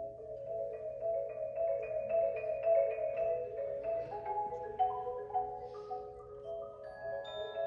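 A percussion ensemble playing marimba and other mallet keyboard instruments, with a steady stream of quick struck notes in the middle register. Near the end, higher, longer-ringing bell-like notes join in.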